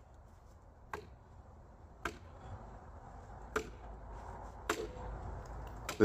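Axe knocking lightly against a split red oak log, five short sharp knocks a second or so apart, growing a little louder.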